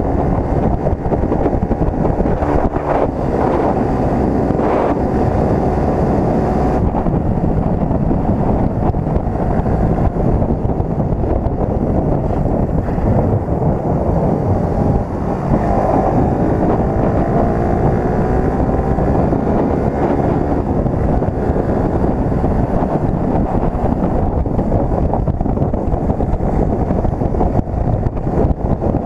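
Wind rushing over the microphone of a riding motorcycle, over the steady hum of its engine at road speed. About halfway through the engine note rises and falls.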